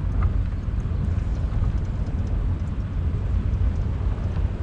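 A vehicle driving on a dirt road: a steady low rumble of engine and tyres, with a few faint ticks.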